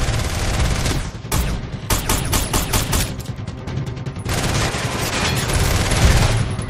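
Movie sound effects of an assault rifle firing rapid automatic bursts, a quick run of shots starting about a second in, over a dramatic film score.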